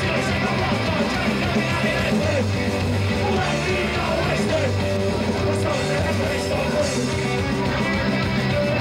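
Live rock band playing loud and steady, with electric guitar and vocalists singing into microphones.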